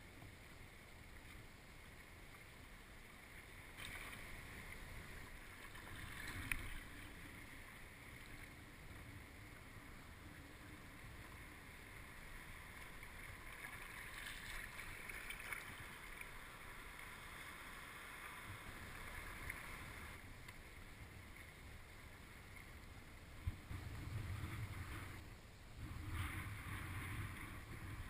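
Kayak paddle strokes in the water: soft, irregular swishes and splashes, with a low wind rumble on the microphone toward the end.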